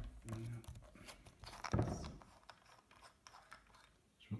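A small plastic LED bike lamp being unscrewed by hand: the plastic threads scrape and crunch, with the knocks and rustle of handling. The loudest burst of scraping comes a little before the middle, and there is a knock near the end.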